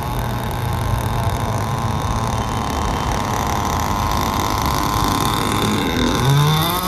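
Radio-controlled model speedboat's motor running steadily over the water. About six seconds in its pitch rises and then holds at a higher note as the boat reaches the bank.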